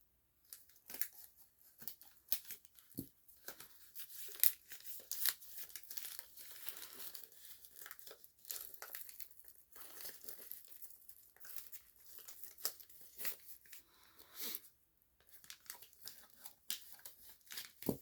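Shipping packaging being torn and crinkled by hand as a parcel is opened, in many short, irregular rips and crackles, with a brief pause near the end.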